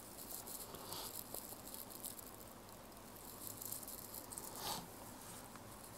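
Faint scratching and light tapping of a stylus drawing a line across a tablet's glass screen, strongest in the first two seconds with a short scrape near the end.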